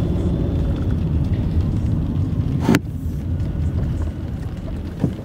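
Low, steady rumble of a car heard from inside the cabin. About two and a half seconds in there is one sharp click, after which the rumble is a little quieter.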